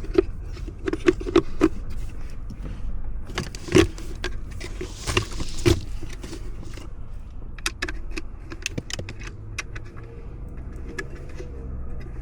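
Plastic and metal handling noises from a blower motor resistor and blower motor housing being worked on by hand with a T20 Torx driver: a run of sharp clicks and taps, with a brief scrape about five seconds in.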